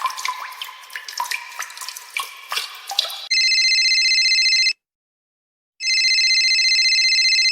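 A rapid run of watery drips and plinks with short rising pitch glides, then a telephone ringing twice, each ring steady and about a second and a half long with a pause of about a second between.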